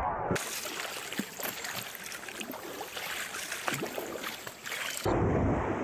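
Shallow forest stream rushing and babbling over rocks. It is cut in suddenly just after the start, right after the tail of a swooping cartoon-style sound effect, and is cut off again about five seconds in by a film clip's soundtrack.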